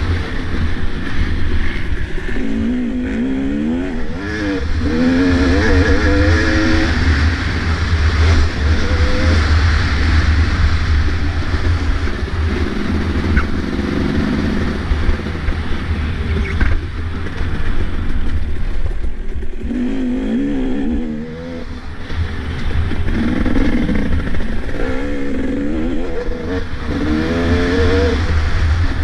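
Two-stroke motocross bike engine, heard from the rider's helmet camera, revving hard and easing off over and over as the rider works through the gears around the track. The revs rise in quick climbing sweeps, with a brief off-throttle drop about three-quarters of the way through.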